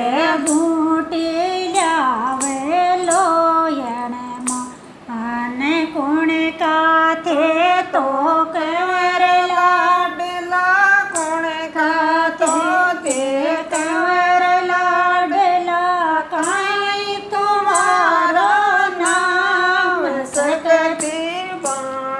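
A woman singing a devotional folk bhajan in a Rajasthani dialect, one voice carrying the melody with long held notes and sliding ornaments.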